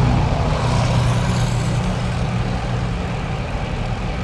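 A motor vehicle's engine running, a steady low hum under wind and road noise, with a hiss that swells briefly about a second in.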